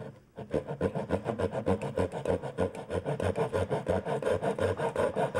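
Japanese-style pull saw cutting a diagonal V notch into a wooden board, across and along the grain at once, in quick, even back-and-forth strokes that start about half a second in.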